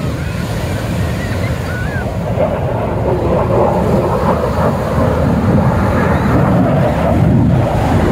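Ocean surf washing in, with wind buffeting the microphone. A rushing noise swells from about two and a half seconds in and stays loud.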